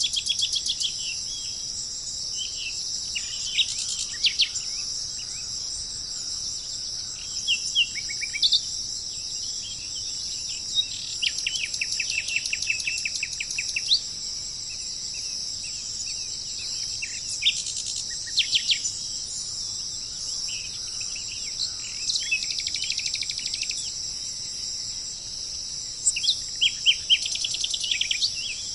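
Tropical forest ambience: a steady high-pitched insect drone, with bird calls coming in rapid series of short repeated chirps every few seconds, the loudest near the start and near the end.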